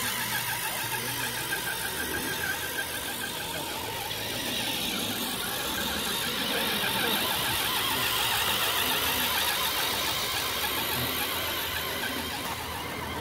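Radio-controlled scale Mercedes-Benz Actros 4x4 tipper truck driving, its electric drive and gearbox whining in a high, warbling squeal that grows louder in the middle and eases near the end.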